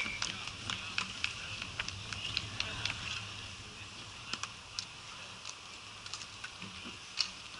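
Scattered light clicks and taps of ball hockey sticks and shoes on plastic sport-court tiles, with faint voices in the background.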